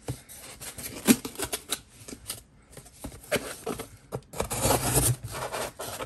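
Roxon S802 Phantom multi-tool blade cutting through corrugated cardboard: a run of short scraping, snipping strokes about a second apart, then a longer rasping cut near the end. The blade is having a little bit of a tough time cutting.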